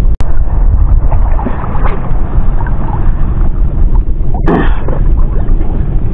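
Wind buffeting the camera's microphone out on open water: a loud, steady low rumble. A brief louder burst comes about four and a half seconds in.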